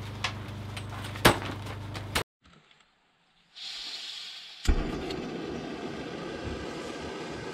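A steady low hum with a few sharp clicks, then after a brief silence a backpacking canister stove's gas hissing while a lighter is held to it. It lights with a sharp pop about two-thirds of the way in, and the burner then runs steadily.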